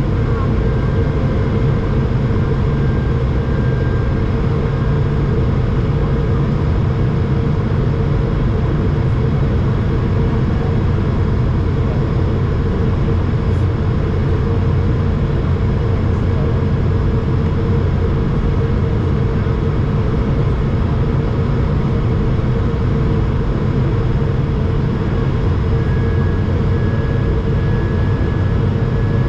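Steady cabin noise in an Airbus A220 descending on approach: the rush of airflow over the fuselage and the hum of its Pratt & Whitney PW1500G geared turbofan engines, with a faint steady whine above it.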